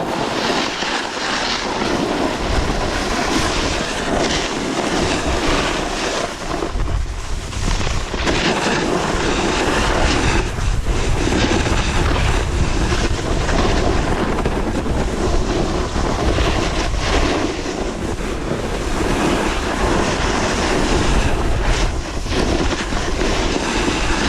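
Wind buffeting the microphone and skis scraping and hissing over hard, icy snow during a ski descent. It makes a loud, uneven rushing roar with a deep rumble that surges with each turn.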